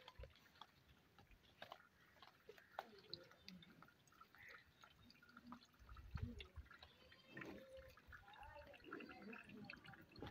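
Near silence: faint scattered clicks and taps, with faint indistinct voices in the last few seconds.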